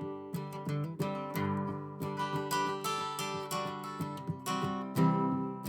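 Acoustic guitar strumming chords in a steady rhythm: an instrumental break between verses of a folk song.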